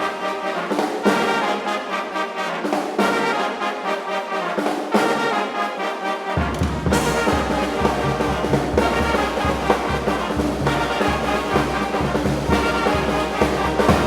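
Brass band music, with trumpets and trombones playing over a steady drum beat. The low bass drops out for the first half, then comes back in about six seconds in.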